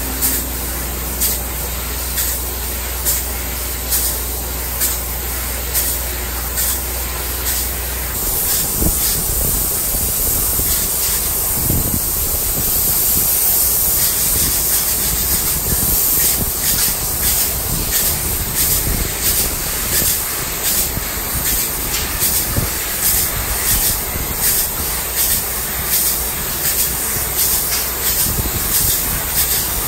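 Closed-cell spray foam gun spraying insulation onto a metal building's roof: a loud, steady hiss of the spray that swells and eases about once a second.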